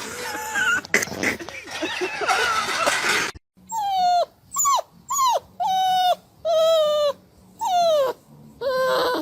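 A dog whining in a series of about seven short, high whimpers, each dropping in pitch at the end. These follow a cut from a first few seconds of jumbled noise.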